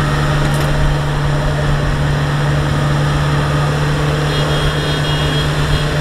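Diesel engines of Kubota rice combine harvesters running steadily under load with a strong, even hum, as one harvester hauls the other out of deep mud.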